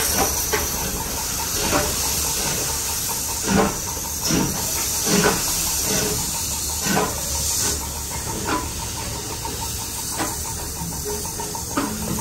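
A USATC S160 steam locomotive hissing steam steadily, with a series of short thuds at uneven gaps of a second or two.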